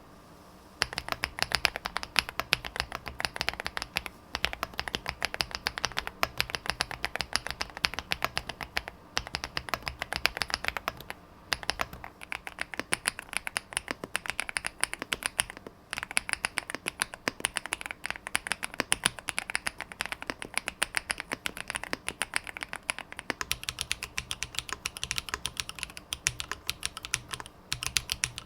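Fast, continuous typing on a Chilkey ND-series custom mechanical keyboard, a dense run of key clicks. It starts about a second in and breaks for a brief pause now and then.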